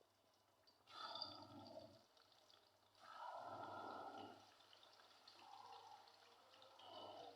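Faint water pouring and splashing, in several short spells of a second or so.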